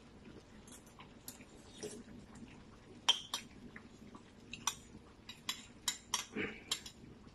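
A spoon clinking lightly against a bowl while someone eats, a handful of scattered short clicks over the last four seconds or so.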